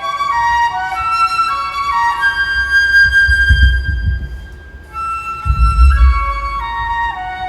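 Flute playing a melody: runs of stepping, mostly falling notes, a long held note in the middle, a short break about five seconds in, then more descending runs. A low rumble sits under the louder passages.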